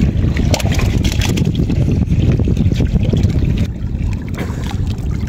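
Wind rumbling on the microphone over water splashing and sloshing as a man wades and ducks under in chest-deep river water.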